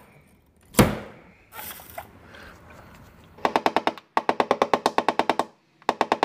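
One sharp knock from a slide-hammer glue puller about a second in. Later come quick, evenly spaced ringing taps, roughly ten a second in short runs: a hammer striking a knockdown tool held on the door panel to tap down a high crown left by glue pulling.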